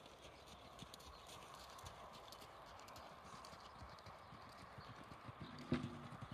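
Faint hoofbeats of a horse moving over a sand arena. Near the end there is a sharp knock, followed by a short low pitched sound.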